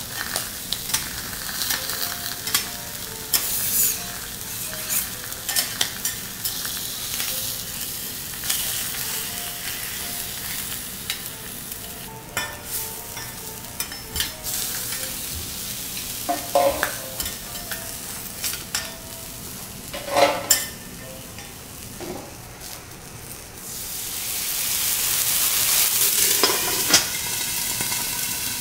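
Abalone in the shell sizzling on a hot teppanyaki steel griddle, with steel spatulas scraping and knocking on the plate, a few knocks ringing out. Near the end the sizzle swells into a louder hiss, and a metal clank sounds as a steel dome is set down on the griddle.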